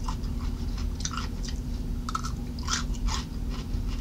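Close-up chewing of raw cucumber slices: irregular wet crunches, about seven in four seconds, over a steady low hum.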